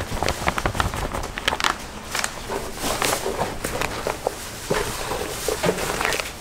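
Kitchen clatter: many irregular clicks and knocks from food being handled and worked.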